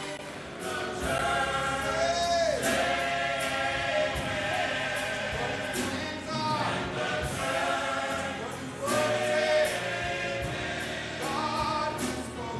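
Church choir singing a gospel song with a steady beat behind it.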